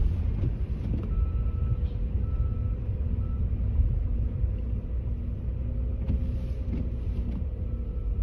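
Car cabin noise while driving on snowy streets: a steady low rumble of engine and tyres, with a faint hum and a faint short repeated higher tone above it.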